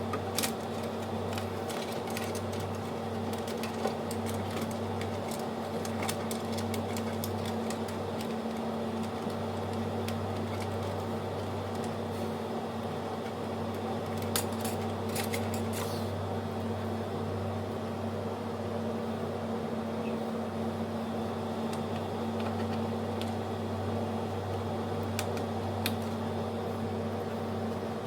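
A steady mechanical hum with scattered small clicks and taps, most of them near the start and around the middle.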